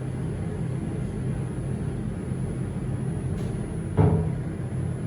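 Elevator cab running with a steady low hum, and a single sharp thump about four seconds in.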